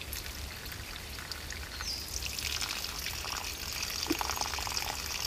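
Water poured from a cup onto an improvised sock filter packed with sand, charcoal, rock and grass, splashing and trickling through it to saturate the filter; the pouring gets louder about two seconds in.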